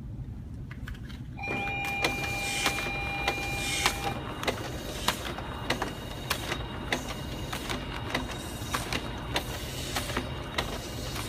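Kodak sheet-fed document scanner starting up about a second and a half in, then feeding a stack of answer sheets one at a time, with a regular click about twice a second as each sheet is pulled through.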